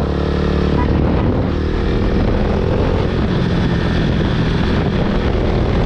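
KTM RC 390 single-cylinder engine running loud through an Akrapovic full-system exhaust, with a steady exhaust note that is clearest in the first second.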